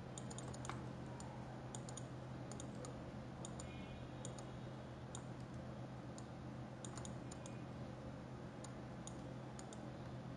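Scattered, irregular clicks of a computer mouse and keyboard, over a steady low electrical hum.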